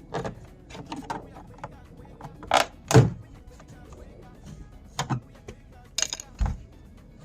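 Sharp plastic clicks and knocks from a car's door trim being pried off with a plastic trim tool, the loudest about three seconds in, over faint background music.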